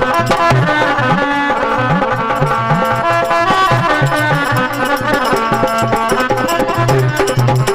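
Instrumental interlude of a live Rajasthani devotional bhajan: a hand drum plays a steady rhythm, its low strokes bending in pitch, under sustained held melody notes.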